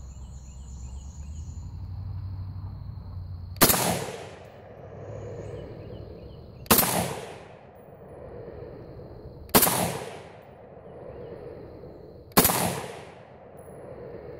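Ruger Mini-14 semi-automatic rifle firing four shots about three seconds apart, each a sharp report that trails off in a brief echo. It is firing cast-bullet handloads, and the action cycles on every shot with no function problem.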